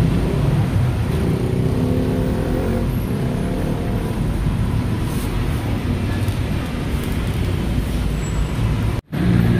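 Steady rumble of street traffic passing close by, which breaks off for a moment near the end.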